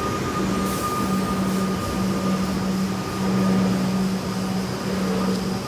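Stationary electric suburban train's steady hum, with a low drone that cuts in and out and a thin high tone that stops about two seconds in. There is a brief hiss under a second in.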